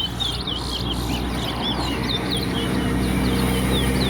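Caged towa-towa (chestnut-bellied seed finches) singing in a song race: a rapid string of short, high chirping notes sliding up and down, over a steady low hum.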